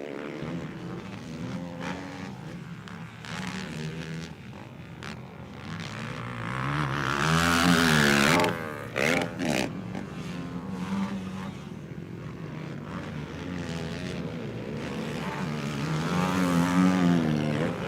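Racing quad engines revving hard and easing off as ATVs go by on the motocross track, pitch rising and falling with each throttle change. The loudest pass comes about seven to eight seconds in and cuts back sharply just after, with the engines swelling again near the end.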